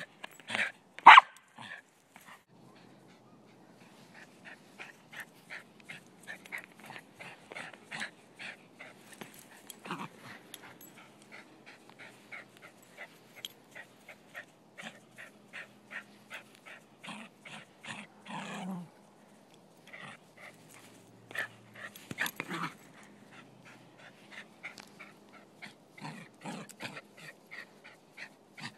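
Silky terrier making a long run of short, quick yips and whimpers, about two or three a second, with a louder sharp sound about a second in.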